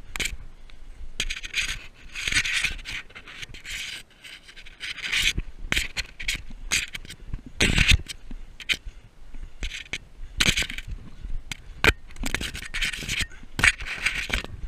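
Rope cargo netting and grass scraping and rubbing against a body-worn camera as someone crawls under the net, in irregular rustling bursts with one heavier knock about eight seconds in.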